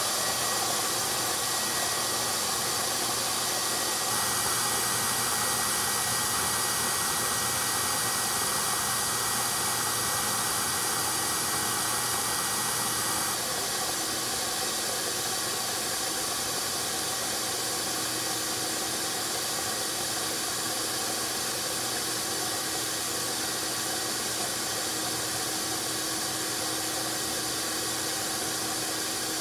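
Vacuum motor running steadily with a rush of air, its hose drawing bees off exposed honeycomb in a wall. The sound shifts slightly about four seconds in and again near the middle.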